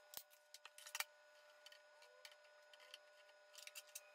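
Faint, sparse metallic clicks of a hand tool bending back the staples that hold a metal drain strainer in a plastic trash-can lid, the sharpest about a second in and a quick run of clicks near the end, over a faint steady hum.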